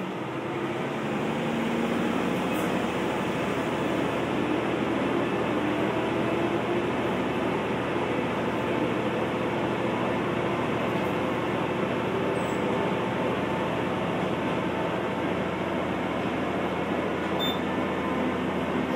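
Running sound inside a Kanto Railway KiHa 2200 series diesel railcar: its diesel engine and wheels on the rails grow louder over the first couple of seconds, then run steadily at speed.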